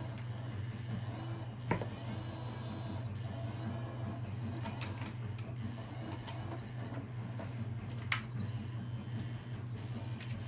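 Battery-powered pop-up cat toy giving short bursts of high electronic chirping, about every second and a half to two seconds, over a steady low hum. Two sharp knocks come as the kittens bat at it, about two seconds in and again near the end.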